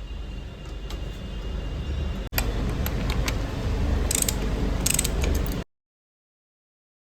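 Mechanic's hand tools clicking and ratcheting on metal over a steady low rumble, during reassembly of a Royal Enfield Bullet 350 engine. The sound cuts off suddenly into silence near the end.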